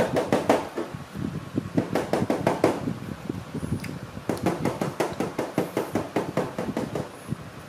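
Close-up eating sounds: wet chewing and lip-smacking on rambutan flesh, a rapid run of short clicks several times a second that thins out near the end.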